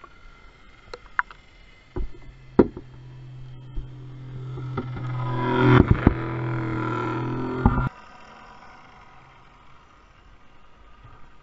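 Vintage toy submarine's small motor humming, heard underwater: a steady hum that starts with a sharp knock about two seconds in, grows louder as the submarine comes close and cuts off suddenly near eight seconds. A couple of sharp knocks come as the hum starts.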